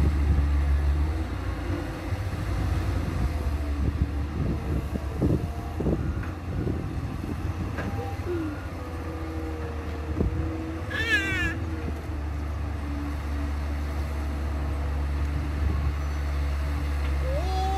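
Caterpillar 320B excavator's diesel engine running steadily as it digs and loads, with a run of knocks and clunks a few seconds in. A short high chirping call is heard about eleven seconds in.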